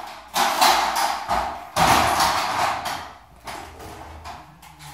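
Ductwork installation noise: sudden bursts of metal banging and rattling, the two loudest coming just after the start and again nearly two seconds in, each dying away over about a second, with weaker knocks later.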